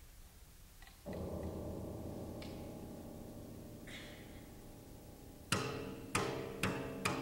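Violin, cello and piano trio playing live. After a brief hush a sustained chord enters about a second in and slowly fades, then sharp accented notes begin near the end, about two a second.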